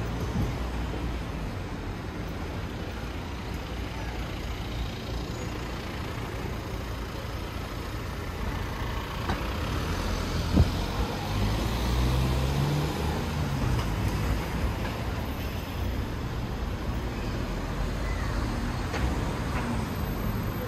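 City street traffic: a steady low rumble of motor vehicles, with a single sharp knock about halfway through. Just after the knock, a passing vehicle's engine hum rises and falls over a couple of seconds.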